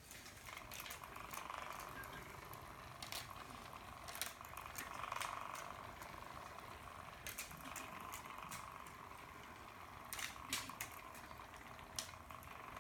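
Battery-powered butterfly spinner cat toy running, its small motor whirring steadily, with irregular sharp clicks and taps.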